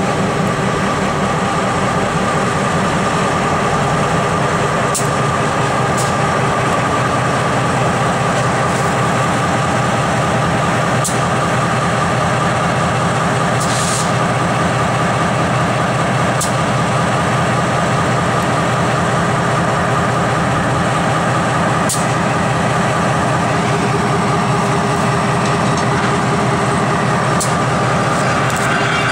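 Norfolk Southern EMD end-cab switcher's diesel engine idling with a steady low rumble and an even hum, while the locomotive rides the turning turntable. A few short, sharp clicks and hisses sound over it now and then.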